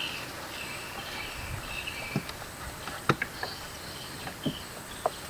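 High-pitched wild animal calls in short repeated bursts, typical of riverside jungle. A few sharp clicks and knocks come in the second half, closer together near the end.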